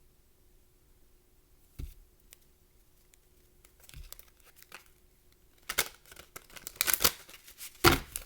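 Cards being handled: a single knock about two seconds in, then crinkly rustling and sharp clicks over the last couple of seconds.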